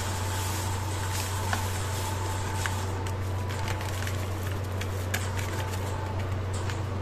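A foil sachet crinkling with light scattered ticks as jelly powder is shaken out into a glass bowl, most busily in the middle, over a steady low hum.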